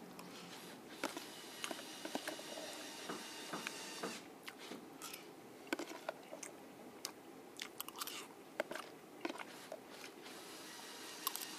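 A man chewing a mouthful of spaghetti close to the microphone, with many short, wet mouth clicks and smacks scattered through.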